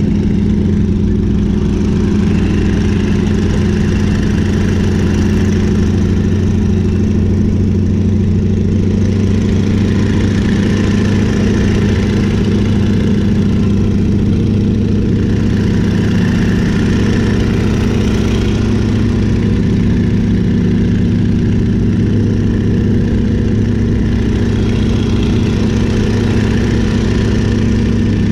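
Stearman biplane's radial engine running steadily in flight, a constant drone heard from the open cockpit with wind rushing over it.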